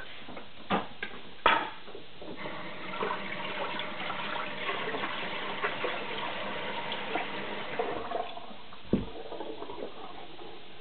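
Steel knife bevel scrubbed on a wet Japanese natural sharpening stone with slurry, a gritty wet scraping of about six seconds, after a few sharp knocks at the start. A dull thump comes near the end.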